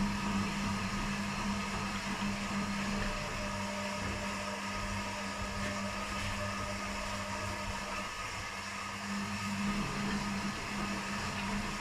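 Two front-loading washing machines running a quick wash cycle with blankets inside: a steady motor hum with a constant low tone and the wash drums turning. The tone fades about eight seconds in and returns a second later.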